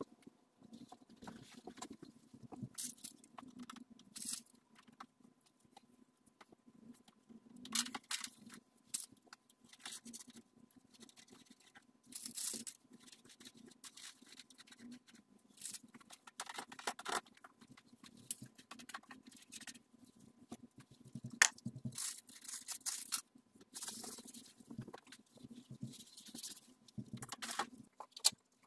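Scattered rustles, scrapes and clicks of hands tidying a room: a fabric cover smoothed over a sofa, things handled at a child's seat, and furniture wiped with a cloth, over a faint steady hum.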